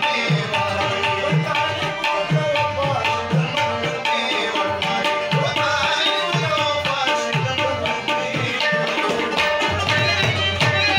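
Tabla and harmonium playing together: the harmonium holds sustained reed notes while the tabla keeps a steady rhythm, its bass drum giving deep strokes that slide down in pitch.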